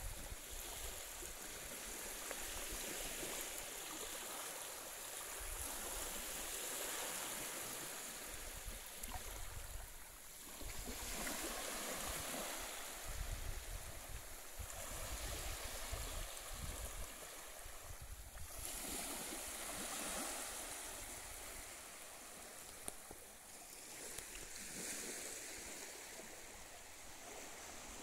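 Small waves washing in and lapping on a sandy shore, the wash swelling and easing every few seconds, with occasional low rumbles of wind on the microphone.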